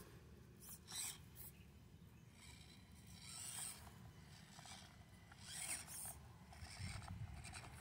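Faint Axial SCX24 micro RC crawler climbing loose rock: its small electric motor and gears whir in short bursts as the throttle is worked, with a little scrabbling of the tyres on gravel.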